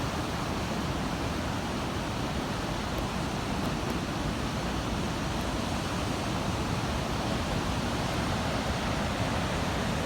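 Steady roar of heavy ocean surf, an even rushing noise with no single wave crash standing out.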